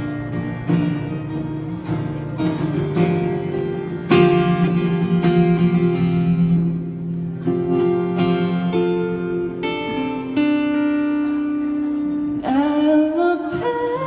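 Acoustic guitar playing the chord intro of a pop song, with a singer's voice coming in near the end.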